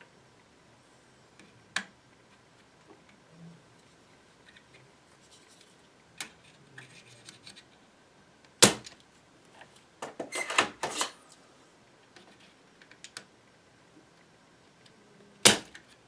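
Scattered sharp clicks and taps of a soldering iron and rubber desoldering bulb being worked against a vintage radio chassis while old capacitors are desoldered. The loudest knock comes a little past halfway, followed by a rattling cluster of clicks, with another sharp knock near the end.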